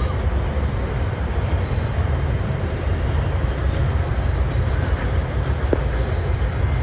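Double-stack intermodal freight train's container well cars rolling past, a steady low rumble of steel wheels on the rails.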